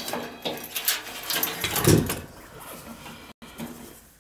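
Sheet-metal clattering and scraping as a furnace blower motor is worked loose from its housing, with a single heavy thump about two seconds in, then lighter handling noise.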